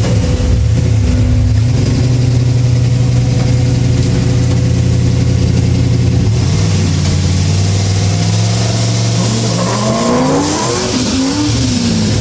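V8 engines of a turbocharged 5.3 pickup truck and a cammed 5.7 Corvette running hard against each other. The engine note holds steady at first, then from about nine seconds in the pitch sweeps up and drops back several times as they accelerate.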